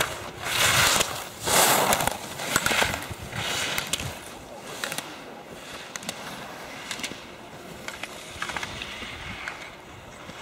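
Slalom racer's skis scraping and hissing across hard-packed snow, one burst per turn about once a second for the first four seconds, then fainter, with a few short sharp knocks.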